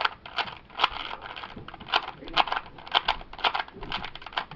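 Plastic 3x3 Rubik's Cube layers being twisted quickly by hand, clicking and clacking about four times a second.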